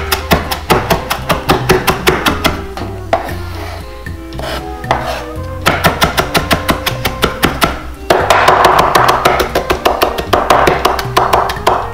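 Santoku knife rapidly chopping fresh herbs on a wooden cutting board, several quick strokes a second in three runs with short pauses between. Background music plays underneath.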